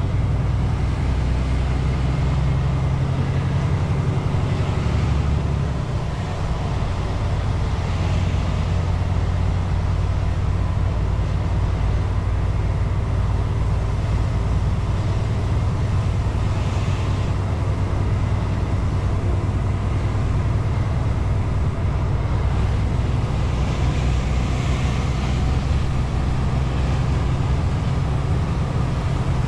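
Lorry's diesel engine running under way, heard inside the cab as a steady low drone with faint road noise; the engine note dips briefly about six seconds in.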